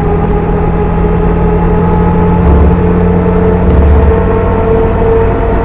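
Supercharged Daihatsu Hijet kei truck's engine pulling under hard acceleration, heard from inside the cab, with a steady whine that rises slowly in pitch. Two low thumps come about halfway through.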